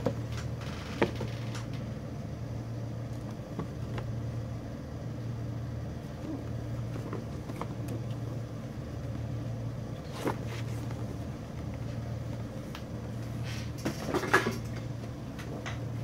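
Cardboard figure boxes being handled: a few light knocks and rustles, the loudest near the end, over a steady low hum.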